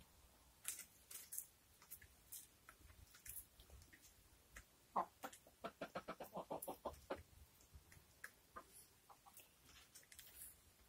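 Chickens clucking: a quick run of short, low clucks about five seconds in, several a second for about two seconds, among faint scattered clicks.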